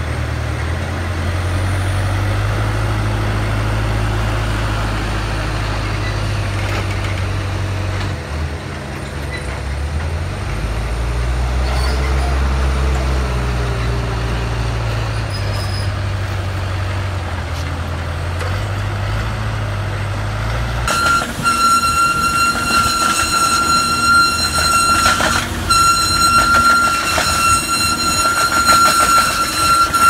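Diesel engines of a squash harvester and a forklift running steadily. About twenty seconds in it changes suddenly to the harvester's rod-chain pickup conveyor running close by: a rapid metallic clatter under a steady high-pitched whine.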